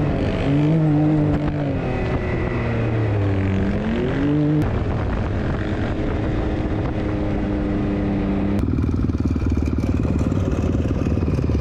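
Off-road vehicle engines running under throttle over sand, the engine pitch rising and falling with acceleration and then holding steady. The engine sound changes abruptly twice.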